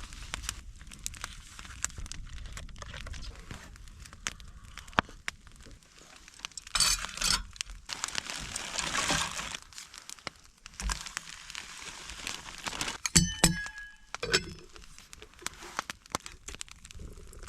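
Breakfast being made by hand: packaging crinkling and rustling in a couple of bursts, a ringing metallic clink of cookware about thirteen seconds in, and scattered small sharp clicks throughout.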